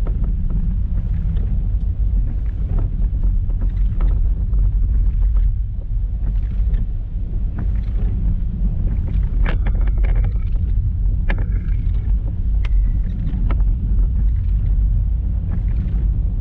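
Car driving through standing water on a flooded road: a steady low rumble of engine and tyres in water, with scattered light clicks and a few faint short tones around the middle.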